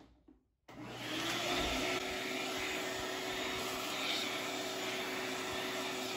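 Shop vacuum that comes on under a second in and then runs steadily: rushing air with a constant hum from its motor.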